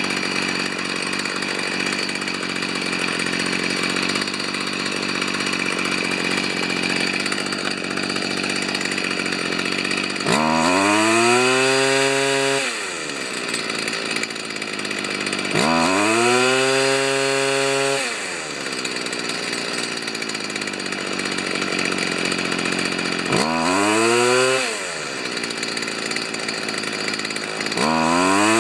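Stihl FS45 trimmer's small two-stroke engine running at a low, steady speed, then revving up sharply and dropping back four times, each rev lasting about two seconds, the last beginning near the end.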